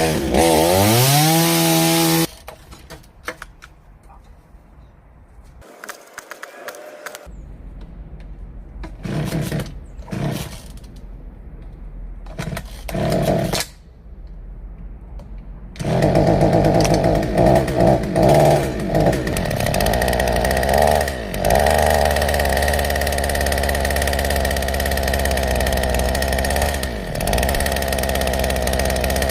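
Two-stroke chainsaw engine powering a homemade minibike. It revs up briefly and cuts off, comes back in short bursts over the next dozen seconds, then runs continuously from a little past halfway, with a few dips and rises in pitch.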